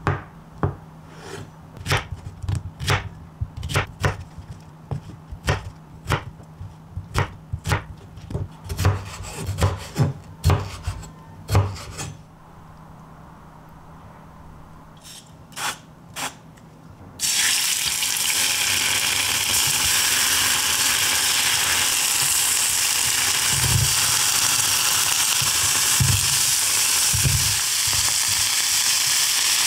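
Kitchen knife cutting through tofu onto a wooden cutting board: a run of repeated sharp knocks. About seventeen seconds in, a steady sizzle starts as tofu, avocado and cherry tomatoes fry in a pan, with a few dull knocks as chopsticks move the food.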